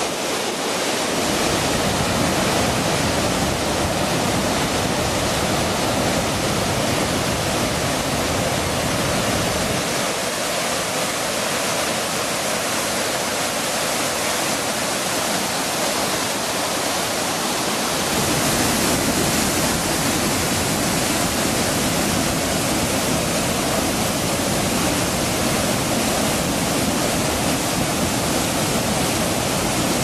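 Øvstebrufossen waterfall and the river below it rushing, a steady dense noise of falling and churning water. Its deepest rumble drops away for several seconds past the middle and then comes back.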